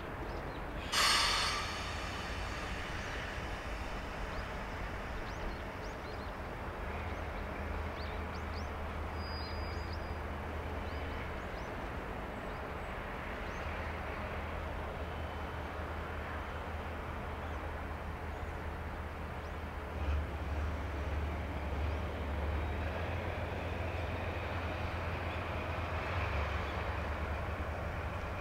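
Moka Railway's C12 66 steam tank locomotive pulling away with its train: a steady low rumble that grows a little louder in the second half. A short sharp hiss about a second in is the loudest moment.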